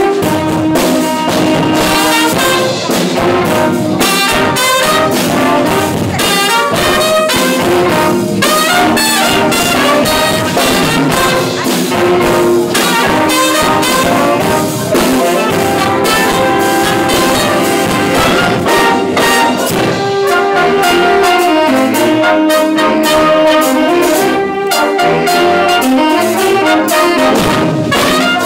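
A high-school jazz band playing an upbeat, funky chart live, with brass and saxophones playing together over a steady beat.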